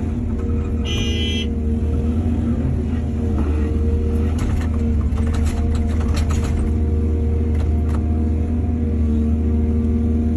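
Excavator's diesel engine running steadily under load, with a brief high squeal about a second in and a run of knocks and rattles a few seconds later.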